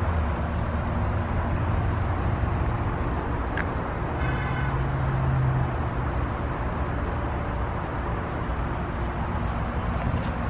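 Steady outdoor background noise like passing road traffic, with a low hum throughout. A brief pitched tone comes in about four seconds in and lasts just over a second.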